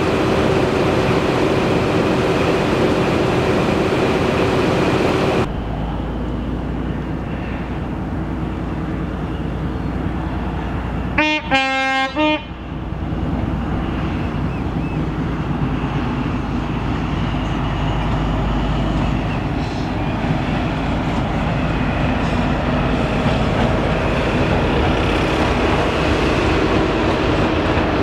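High Speed Train (Class 43 power cars) running. After an abrupt change about five seconds in, a two-tone horn sounds for about a second, high note then low, followed by the steady running of the diesel train and its wheels as it passes, growing louder near the end.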